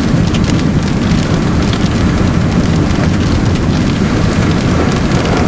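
Loud, steady rumble of wind buffeting and road noise in a moving car with a window rolled down, with a scatter of fine ticks through it.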